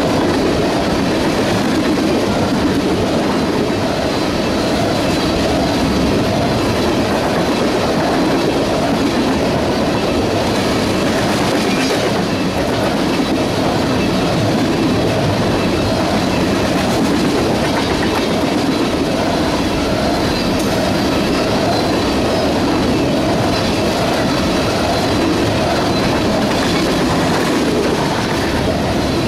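Empty railroad tank cars of a CSX oil train rolling past close by: a steady, loud rumble of steel wheels on the rails, with no break.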